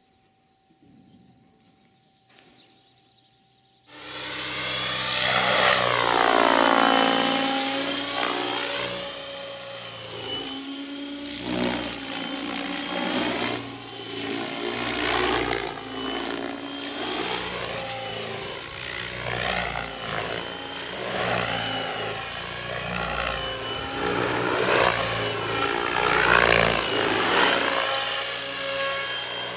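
Radio-controlled model helicopter flying, its motor and rotor whine rising and falling in pitch again and again as it manoeuvres. It starts about four seconds in, after a near-silent opening.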